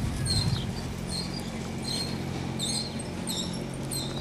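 Small birds chirping in short, high calls, some sliding down in pitch, repeating irregularly, over a low steady hum.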